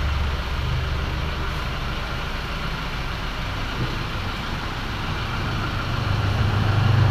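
Mitsubishi Montero Sport engine idling steadily, its low hum growing louder near the end.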